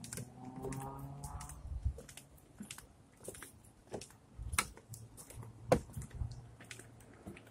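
Footsteps on a park path crunching and thudding at an uneven pace, with a sharper click about three-quarters of the way through. A short wordless hum or murmur is heard at the very start.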